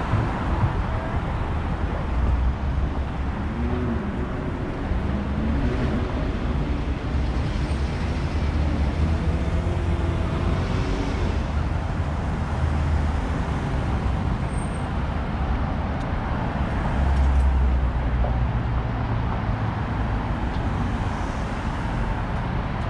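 Street traffic on a downtown city boulevard: motor vehicles passing, a steady low rumble with a haze of road noise.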